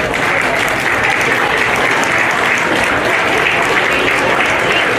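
Crowd applauding steadily, a dense patter of many hands clapping, with voices mixed in.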